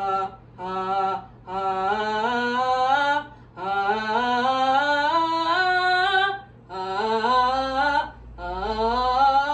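A woman singing rising vocal scales. Two short notes open the passage, then come four runs, each climbing step by step through about an octave, with short breaths between them.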